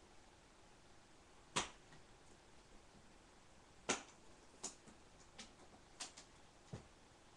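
A handful of sharp, irregular clicks or taps against a quiet room, the two loudest about a second and a half and four seconds in, followed by four fainter ones.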